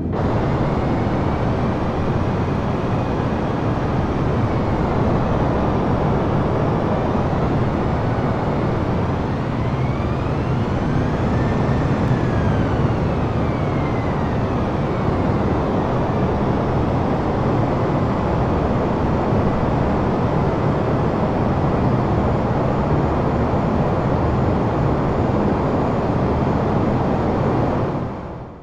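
Airbus A320 on its landing rollout: a loud, steady rush of jet engine and airflow noise. An engine whine rises and then falls back about ten to fourteen seconds in.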